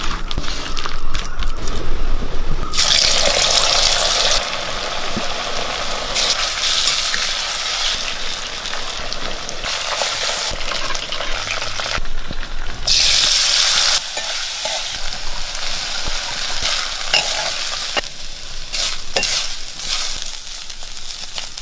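Chicken pieces frying and sizzling in hot oil in a pan while being stirred, with a spoon clicking against the pan. The sizzle swells louder twice, about three seconds in and again about thirteen seconds in.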